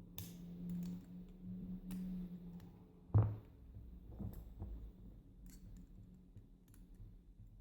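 Faint clicks and scrapes of clip-removal pliers working at the retaining clip on a euro cylinder lock, with one dull knock about three seconds in. A low hum runs through the first two and a half seconds.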